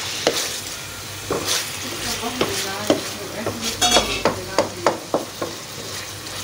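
Pieces of mutton liver, kidney and heart sizzling in oil in a black karahi, stirred with a spatula that scrapes and knocks against the pan in short, irregular strokes over a steady frying hiss.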